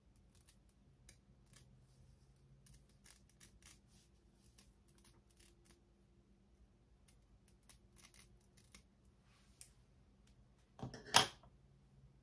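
Scissors snipping the lace of a lace-closure wig: a run of quiet, irregular snips and clicks, with one brief, much louder burst of noise near the end.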